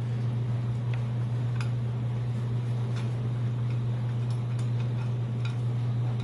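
A steady low hum, with a few faint light ticks scattered through it.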